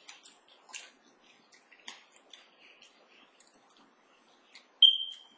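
Close-up chewing and eating sounds of nachos: faint, scattered clicks, smacks and small crunches. Near the end a brief high squeak, the loudest sound.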